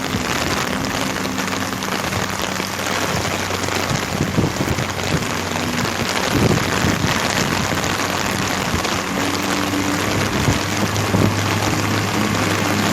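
Heavy rain pouring down in a dense, steady hiss. A low steady hum runs underneath and grows stronger about nine seconds in.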